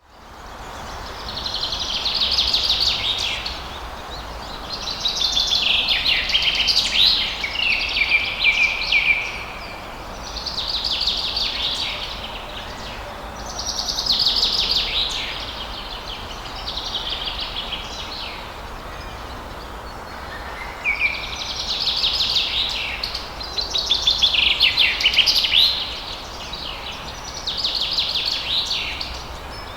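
Songbirds chirping in repeated bursts of rapid high trills, one every few seconds, over a steady hiss of falling water.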